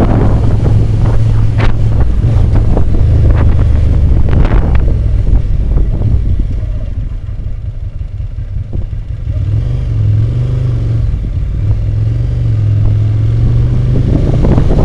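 Ducati motorcycle engine running under way, a steady low drone, with heavy wind rush over the microphone. The wind noise eases for a few seconds midway and builds again near the end.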